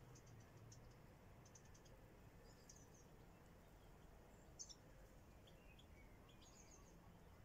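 Faint, high-pitched chirps of small birds, a few short runs spread through, the clearest about halfway, over quiet outdoor background noise.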